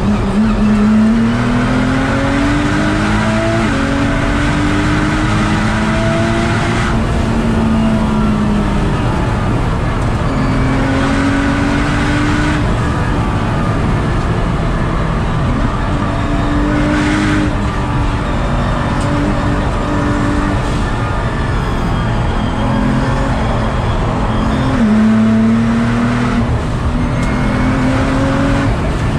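Nissan GT-R R35's twin-turbo V6 pulling hard at track speed, heard from the passenger seat. The engine note climbs in pitch through each gear, drops suddenly at gear changes and eases off in places, over steady road noise.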